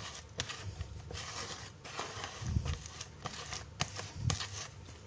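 A plastic rice paddle stirring and scraping a damp, crumbly pellet fishing-bait mix around a plastic basin: irregular rasping and small clicks, with a couple of soft knocks of the paddle against the basin.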